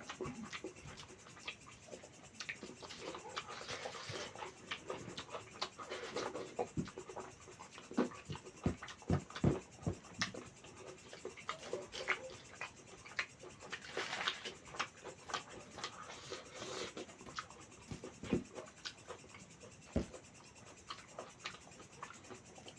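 Close-miked eating sounds of a person eating mutton curry and rice: a steady, irregular run of wet chewing and mouth smacks, with many short clicks.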